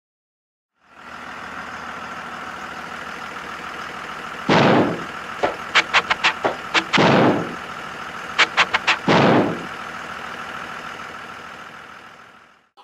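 School bus engine idling steadily, broken by three loud hissing bursts of about half a second each, with quick runs of sharp clicks between them. It fades out near the end.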